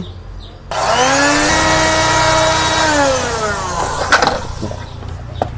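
Blender motor running when its wires are fed straight from a spare power cord. It starts with a whine that rises in pitch, holds steady for about two seconds, then winds down, with a sharp click or two near the end. The motor works, so the fault lies in the blender's own power cord.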